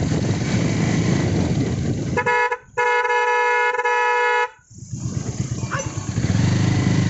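Motorcycle's horn sounding twice over its running engine and wind noise: a short toot, then a steady blast of about a second and a half, a warning to cattle walking on the road ahead.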